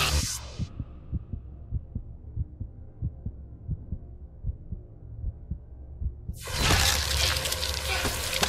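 Heartbeat sound effect in a film soundtrack: muffled low thuds at about three a second, left alone after the loud score cuts out. About two seconds before the end, loud, dense music crashes back in.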